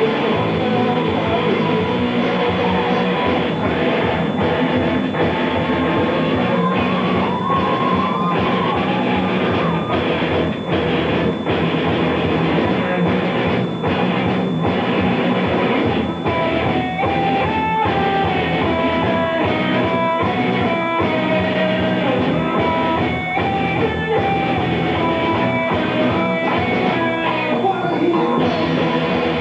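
Live rock band playing loud, with electric guitars and a drum kit keeping a steady beat and a melodic line moving over the top.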